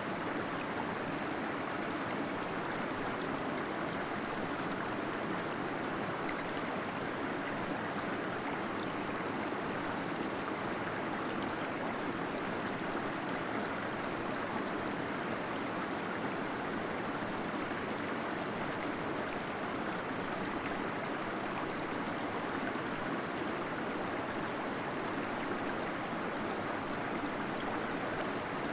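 Steady rush of a small waterfall flowing into a cave pool, with gurgling water and an even, unchanging level.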